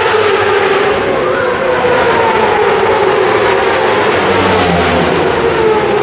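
Several superbike racing motorcycles running at high revs on the circuit, their overlapping engine notes sliding slowly down in pitch.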